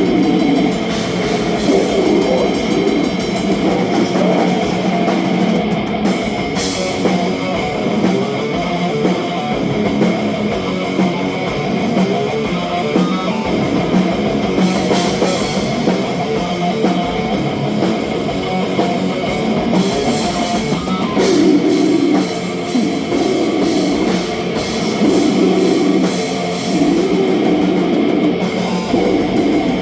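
Death metal band playing live: heavily distorted electric guitars over a drum kit, loud, dense and unbroken.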